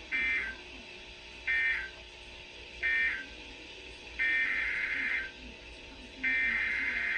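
Emergency Alert System SAME digital data bursts, a shrill warbling screech. Three short bursts about a second and a half apart mark the end of the flash flood warning message. Then two longer bursts, about two seconds apart, begin the coded header of the next alert.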